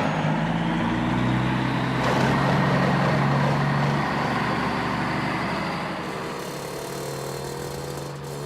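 Heavy vehicle engines running hard: a steady low engine drone under a dense rushing noise. About six seconds in, a rising whine comes in, like an engine revving up.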